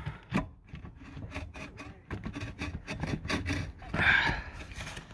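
Irregular scraping and knocking of a tankless water heater's vent pipe and its plastic wall termination being twisted and pushed into place by a gloved hand, with a louder scrape about four seconds in.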